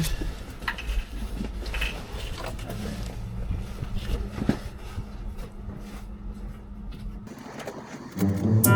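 Hand tools clinking and scraping on metal while a small heat shield is unbolted beside a truck turbocharger, over a steady low hum. The hum cuts off about seven seconds in, and music starts near the end.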